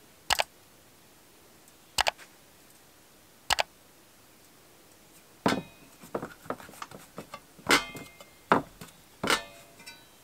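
Hands working a ball of dough on a floured wooden board: three sharp taps about a second and a half apart, then from about halfway a busier run of irregular pats and slaps of dough against the wood.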